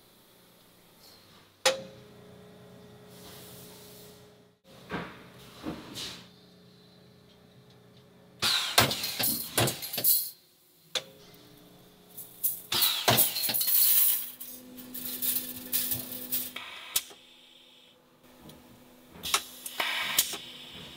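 Stainless steel wire clinking and jangling as it is handled in the workshop, with scattered sharp clicks and two longer loud stretches of metallic rattling around the middle, over a faint steady machine hum.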